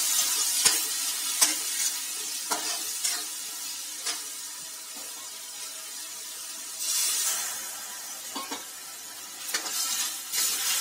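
Chopped onions, potatoes and peanuts sizzling in oil with a little water in a metal kadhai while a steel spatula stirs and scrapes, with scattered clicks of the spatula on the pan. The sizzle swells briefly about seven seconds in.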